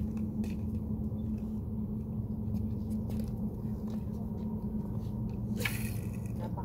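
Wind buffeting the microphone: a steady low rumble, with faint scattered ticks and one brief sharper noise near the end.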